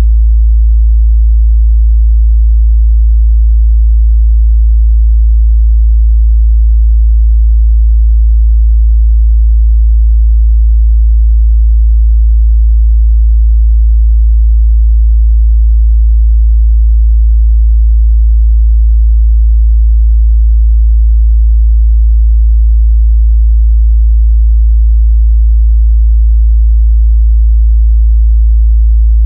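A steady 55 Hz sine-wave test tone, a loud unbroken low bass hum that holds one pitch, used for checking the mid-bass response of speakers and headphones.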